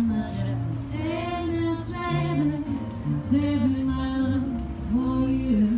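Music: a singer's melody, gliding between held notes, over a line of low bass notes.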